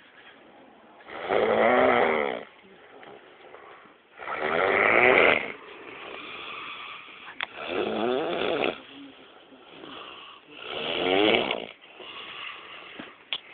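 Rhythmic snoring: four loud rattling snores about three seconds apart, with softer breathing between them. Two brief sharp clicks stand out, one about halfway through and one near the end.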